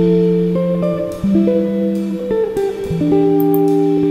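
Background music: a slow melody of held notes with sharp starts, a new note every half second to a second.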